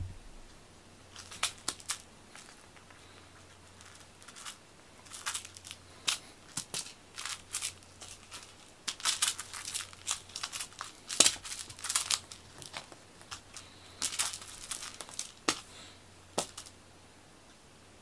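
Cat teaser toy mouse being dragged and flicked across foam floor mats, making irregular crinkly rustles and scratches in short spells, busiest in the middle.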